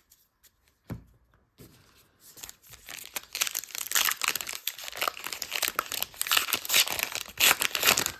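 A baseball card pack's plastic wrapper being torn open and crinkled, a dense crackling rustle that starts about two and a half seconds in after a near-quiet pause and a single click.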